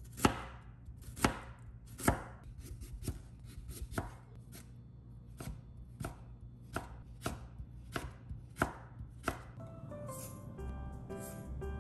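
Chef's knife slicing an onion and then cutting a carrot into thin strips on a wooden cutting board: a few loud separate strikes on the board, then quicker lighter cuts, then steady strokes about two a second. Soft music comes in near the end.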